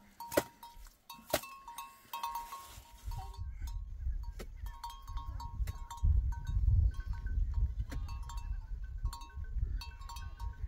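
Small bells on a grazing flock of goats and sheep clinking irregularly, with two sharp knocks in the first two seconds. From about three seconds in, wind rumbles on the microphone.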